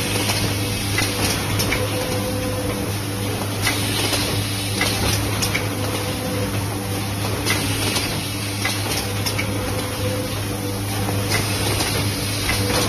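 Automatic lever arch file spine pocket welding machine running: a steady hum and hiss with irregular sharp clicks from its pneumatic actuators and valves.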